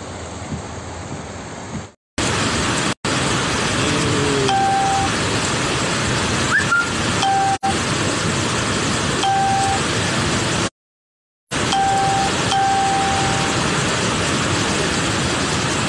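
Steady, loud roar of muddy floodwater rushing down a rocky stream bed and waterfall in spate. The first couple of seconds hold a quieter wash of water before an abrupt cut, and the sound drops out briefly a few times.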